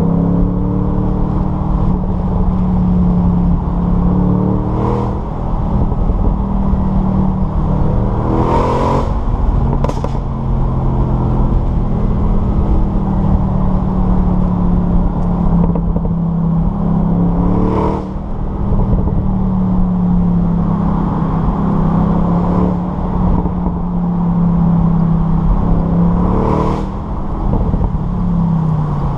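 Bentley Continental GTC V8S's 4.0-litre twin-turbo V8 heard onboard while driving: a steady engine note that holds for several seconds at a time and shifts pitch a few times as it changes gear, with brief sharp bursts at some of the changes. Near the end the pitch falls as the car slows.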